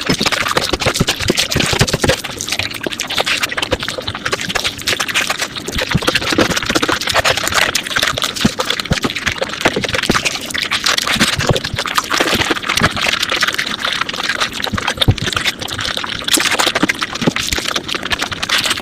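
Mukbang eating sounds sped up five times: a dense, continuous run of rapid wet chewing and mouth clicks.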